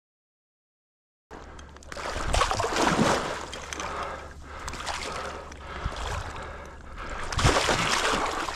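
Silent for about the first second, then marsh water splashing and sloshing in uneven surges.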